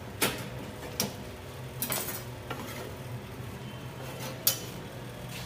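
Kitchen clatter: a handful of sharp knocks and clinks of utensils and items being handled on a food-stall counter, over a steady low hum.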